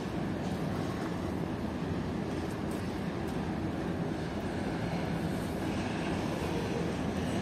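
M62-class diesel locomotive's two-stroke V12 engine running steadily as it moves a train of open coal wagons.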